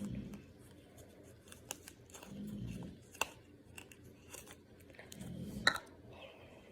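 Handling of the slime mixture by hand and in its bowl: scattered small clicks and crinkles, with three short dull thuds about two and a half seconds apart.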